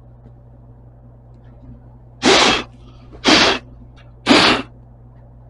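Welder laying three short tack welds on sheet-metal floor patch, each a brief hissing crackle about a second apart, over a steady low hum.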